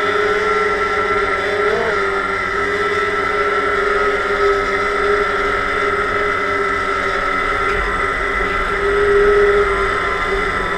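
DJI Phantom quadcopter's electric motors and propellers whining steadily at close range as it hovers low and descends to land, a little louder near the end.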